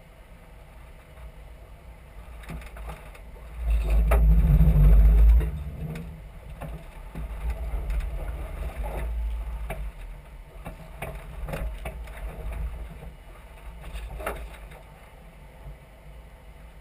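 Off-road 4x4 driving over sand dunes, heard from outside the vehicle: steady low engine and tyre rumble with wind rumbling on the microphone, loudest for about two seconds around four seconds in, and a few sharp knocks from bumps.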